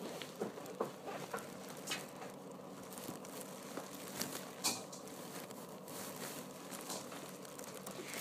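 Faint rustling and crinkling with a few scattered light clicks and taps.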